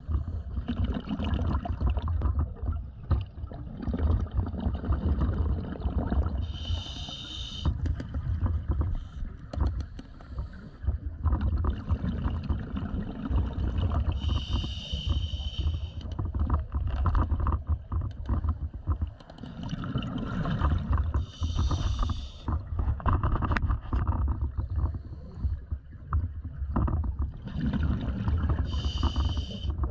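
Scuba diver breathing through a regulator underwater: a hissing inhale about every seven seconds, four times, alternating with the gurgling rush of exhaled bubbles, over a steady low rumble.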